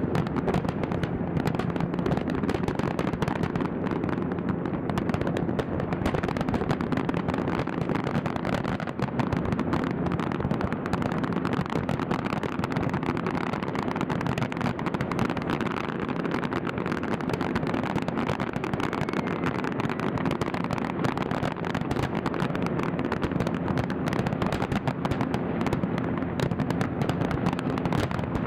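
Fireworks display: a dense, continuous barrage of bangs and crackles at a steady level, with no pause.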